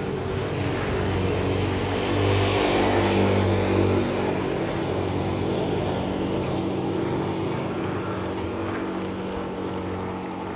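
A motor vehicle's engine running close by, loudest a few seconds in and then slowly fading, over the steady hiss of rain.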